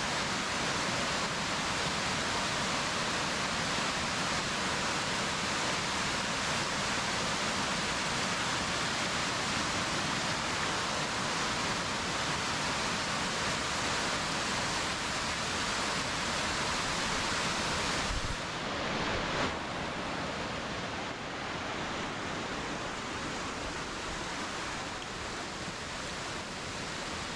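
Waterfall rushing: a steady roar of falling water, the falls running full after recent rain. It drops a little in level about two-thirds of the way through.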